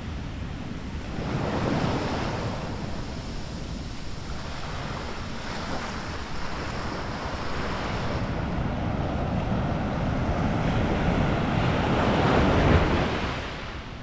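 Small ocean waves breaking and washing up a sandy beach in foamy sheets. The surf swells about two seconds in, then again more loudly near the end before fading. Wind rumbles on the microphone underneath.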